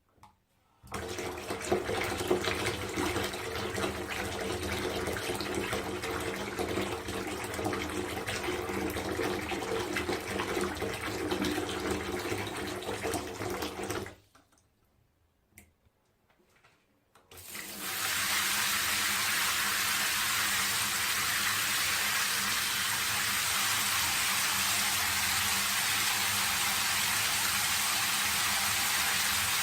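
Running water splashing steadily, with faint low tones under it, stops about 14 seconds in. After a short pause with a couple of small ticks, a steady, even hiss of falling water starts and holds unchanged.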